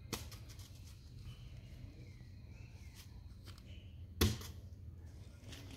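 A cornhole bean bag hitting the board with a single sharp thud about four seconds in, after a fainter click near the start.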